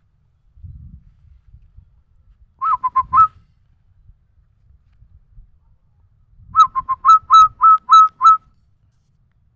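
A person whistling an imitation of a zebra dove's (perkutut's) cooing call: a short four-note phrase, then a longer run of about eight notes, the later ones flicking upward at their ends.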